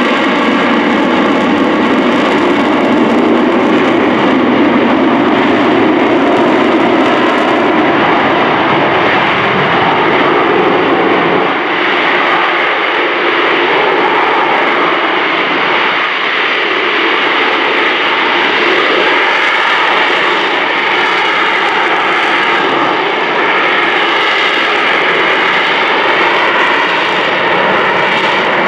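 AV-8B Harrier II jump jet's engine running loud and steady at close range, a continuous jet roar with a whine that wavers slightly in pitch.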